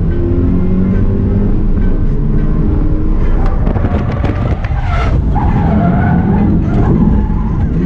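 Subaru BRZ's 2.0-litre flat-four engine revving up and down under hard throttle while drifting, with the tires squealing through the slide, loudest in the second half. Heard from inside the cabin.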